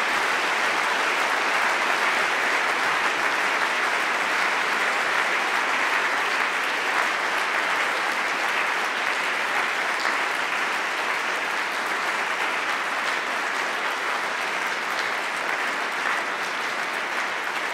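Large seated audience applauding, a steady, dense clapping that eases off a little toward the end.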